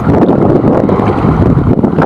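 Wind buffeting the microphone: a loud, steady, rumbling noise.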